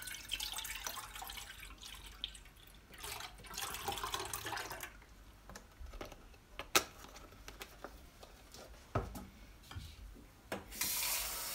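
Milk pouring from a carton into an enamel pot, in two spells of splashing and gurgling, followed by a few sharp knocks and a short steady hiss near the end.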